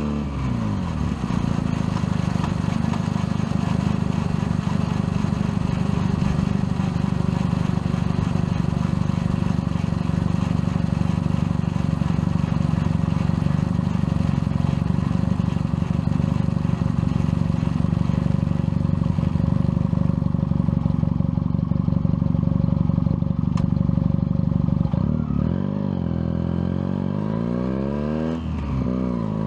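Junak M11 Cafe motorcycle's single-cylinder four-stroke engine heard from the saddle while riding. Its pitch drops in the first second, then it runs steadily at cruising speed. Near the end it falls and rises a few times as the bike slows in traffic.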